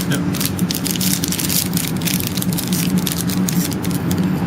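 Dense crackling and crinkling of packaging being handled and torn as a trading-card box is opened, over a steady low hum.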